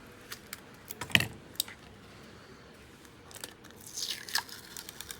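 Small clicks and taps of a smartphone and repair tools being handled on a workbench, the loudest tap about a second in, with a brief scratchy scrape near the end.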